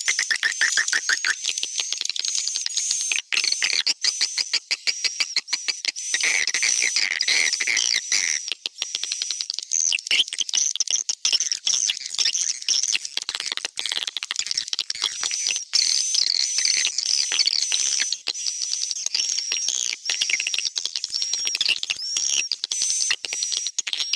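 Recorded swiftlet calls played back as a bird-house lure track: a dense, rapid chatter of clicks with repeated short high chirps. It is a 'tarik' lure call mixed with 'inap' roosting calls, played to draw edible-nest swiftlets into a nesting house and keep them there.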